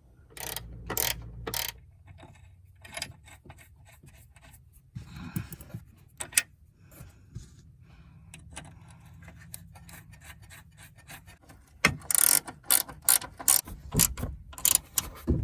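Hand socket ratchet clicking in short runs as nuts are turned, with scattered clinks and knocks of metal tools. Near the end the clicking comes in a loud, quick run.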